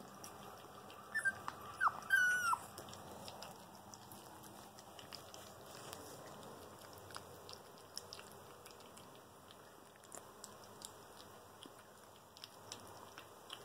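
A puppy gives about four short, high yelps that fall in pitch, a second or two in. Then come faint scattered clicks and smacks of a puppy eating wet food from a small tin.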